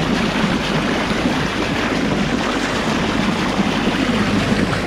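Water rushing and splashing against the hull of a fishing boat under way, a steady loud rush of spray and wake close at the waterline.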